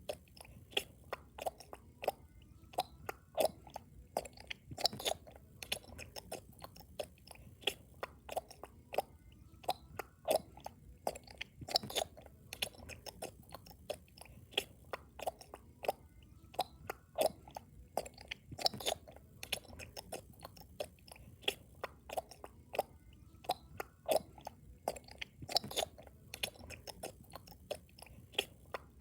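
Loud chewing close to the microphone: a steady run of short, irregular wet clicks, about one to two a second.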